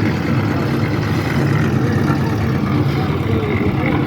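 Concrete mixer's engine running steadily at a low, even pitch while the slab concrete is being mixed.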